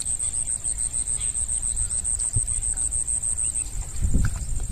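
A cricket trilling: a steady, rapidly pulsing high-pitched chirr that weakens a little past three seconds in. Under it there is a low rumble, and near the end a louder low rustle or thud.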